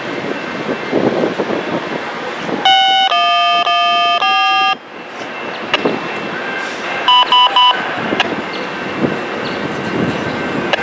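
Train horn sounding: one long blast of about two seconds, then a few seconds later a rapid burst of short toots, over the steady rumble of a train.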